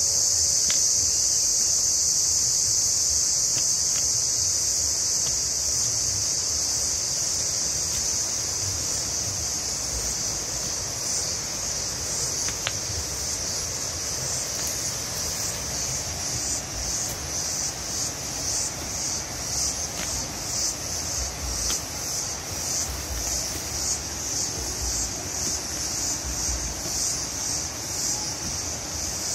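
A steady, high-pitched insect chorus that, from about eleven seconds in, pulses rhythmically at a few beats a second. Low rumbling and a few faint ticks sit underneath.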